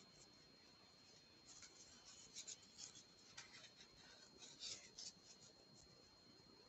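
Near silence: room tone with a few clusters of faint, light scratching and ticking, with a faint steady high whine underneath.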